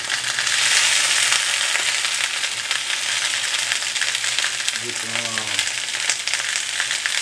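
Bratwursts frying in a skillet: a steady sizzle, slightly louder in the first second or so.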